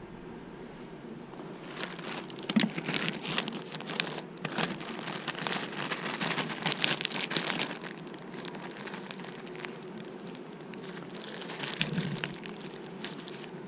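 Honeybees buzzing steadily around an open hive, with crackling and rustling handling noises from about two to eight seconds in and again briefly near the end.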